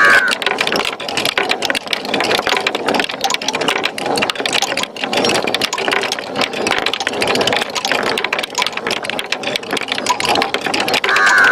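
Many marbles rolling and clattering down a wooden marble run slope: a dense, continuous rattle of small clicks. A short ringing tone sounds once at the start and again near the end.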